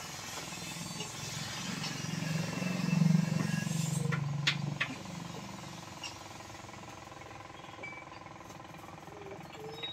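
A low-pitched motor vehicle engine grows louder for a couple of seconds and then fades away, as a vehicle going past would. There are two short clicks as it fades, over a steady faint hum.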